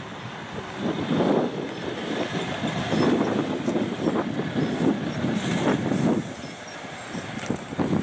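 MAN truck with its 480 hp diesel engine driving slowly on a gravel track, engine running with tyres rolling over gravel, in uneven rumbling surges.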